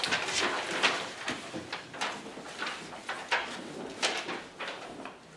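Paper handout pages being turned and rustled, a string of quick swishes and crinkles at irregular moments.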